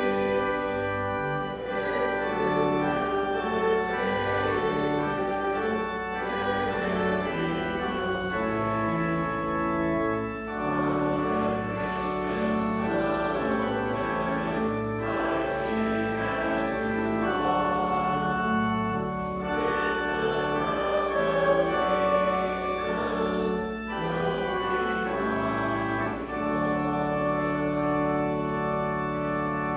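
Church organ playing the closing voluntary of the service: sustained full chords over a moving bass line, ending on a long held final chord.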